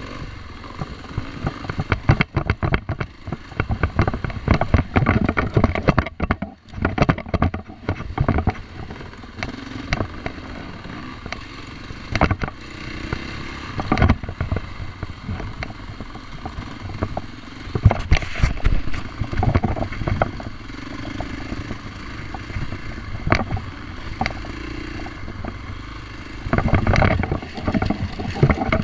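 Husqvarna dirt bike engine running on a rough single-track ride, its level rising and falling, amid frequent knocks and clatter from the bike jolting over the dirt trail.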